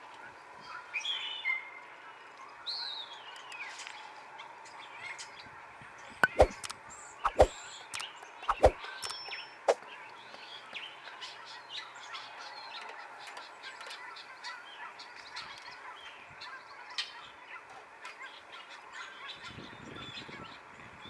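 Birds calling and chirping outdoors, likely village poultry, over a faint steady background. About six to nine seconds in there are three sharp knocks, the loudest sounds.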